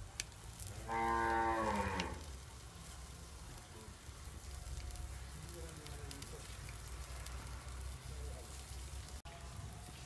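A cow moos once, a single call of about a second starting about a second in. Faint crackling from the wood fire under the pot and a low steady background rumble run underneath.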